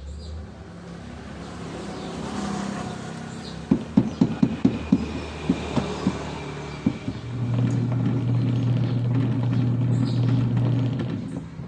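A quick run of about ten sharp clicks, then a motor hums steadily at one low pitch for about four seconds and dies away near the end.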